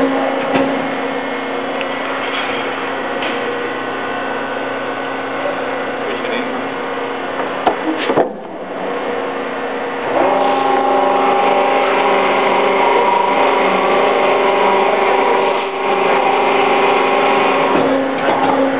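Motor-driven plate rolling machine running, its steel rollers turning as an aluminium composite panel is rolled into a curve. It is a steady mechanical hum with several tones and a gritty crackle over it. A few clicks come about 8 seconds in, then the hum grows louder, with more tones, from about 10 seconds.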